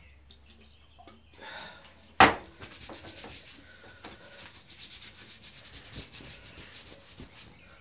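One sharp knock about two seconds in, then a cloth rubbed briskly back and forth over skin for several seconds, wiping off oil-based paint with lacquer thinner.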